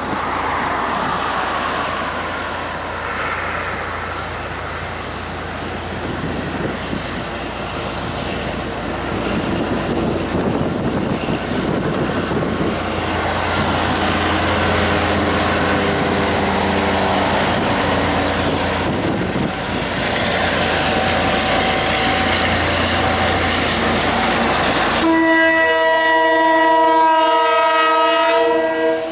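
KiwiRail DC-class diesel-electric locomotive hauling a container freight train, its engine and wheels rumbling steadily as it approaches. About 25 seconds in, its horn sounds a loud multi-note chord held for about four seconds as it passes close by.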